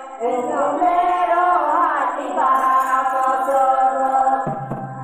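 Group of women singing a Santali dong song together, holding long, wavering notes. Near the end, instrumental accompaniment comes in beneath the voices.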